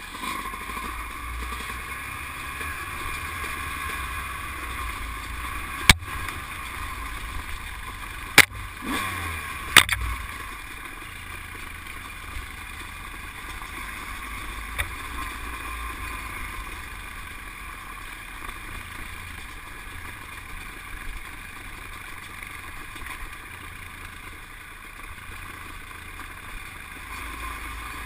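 ATV engine running steadily while riding a rough dirt trail. Three sharp knocks come between about six and ten seconds in.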